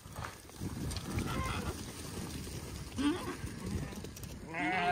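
Sheep bleating: a couple of faint calls, then a louder, drawn-out bleat near the end.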